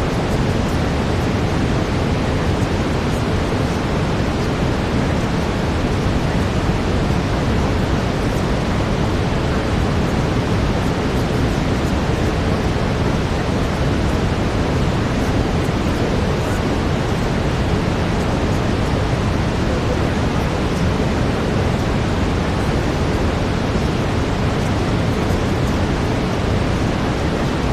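Steady brown noise, a deep even rushing hiss weighted toward the bass, with a faint steady tone beneath it, the track's 432 Hz tuning.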